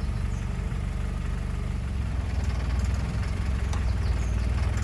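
Jeep Wrangler engine running steadily at low revs as it crawls slowly over a rock, a low drone.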